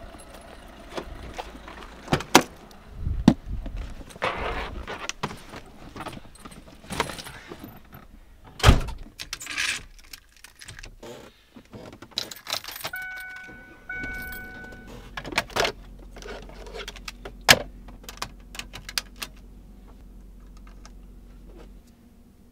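Car keys jangling with footsteps and handling knocks, and a car door shutting with a loud thump about nine seconds in. Then the car's warning chime beeps briefly as the key goes into the ignition, followed by a low steady hum.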